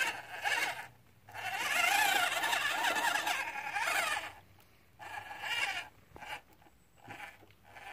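Small RC crawler's 260 brushed motor and gearbox whining as it creeps along, the pitch wavering up and down with the throttle. Past the middle it drops to a string of short spurts as the throttle is blipped.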